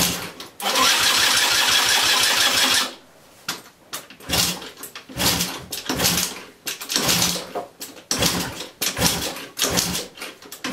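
Yamaha Jog moped's electric starter cranking its 50cc two-stroke engine for about two seconds, then a run of shorter bursts about once a second. The engine doesn't fire.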